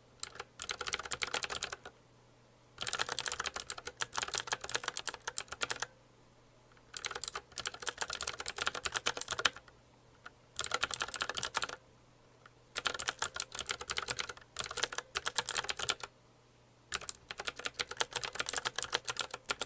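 Typing on a Patech 87-key mechanical gaming keyboard with blue (clicky) switches: rapid runs of keystroke clicks lasting one to three seconds, broken by short pauses.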